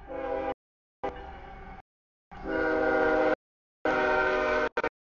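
CSX freight locomotive's air horn sounded in a series of blasts as the train reaches the grade crossing. Each blast is one steady chord, and the blasts grow louder, with the longest and loudest in the second half.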